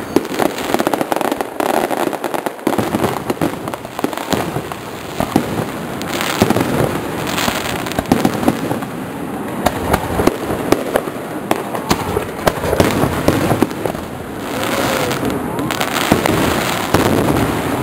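Aerial fireworks going off in a dense, continuous run of bangs and crackles, many shells bursting in quick succession.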